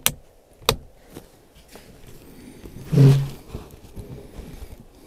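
Clicks and rustles of a bolt-action rifle being handled as a shooter settles in behind it: two sharp clicks in the first second. About three seconds in comes one short, low grunt.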